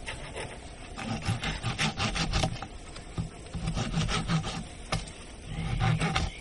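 Hand saw cutting through olive wood in repeated rasping strokes, in short runs with pauses between them, while an olive tree is being pruned.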